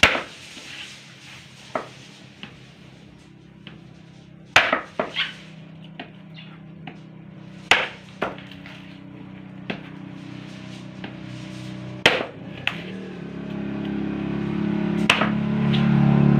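A repaired itak (bolo machete) chopping into a coconut on a wooden block: about a dozen sharp, irregularly spaced blows as the blade is tested against the hard shell for chipping. A low steady drone builds up over the last few seconds.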